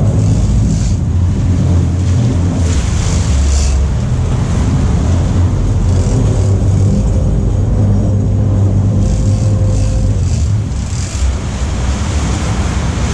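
Sportfishing boat's engines running with a steady low drone, while sea water churns and splashes against the stern in repeated rushes.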